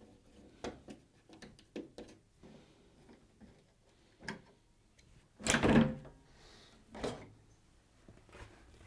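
Light clicks and taps of screws being undone at the back of a washing machine. About five and a half seconds in, the top panel slides off with a loud, half-second scrape, and there is a shorter knock about a second and a half later.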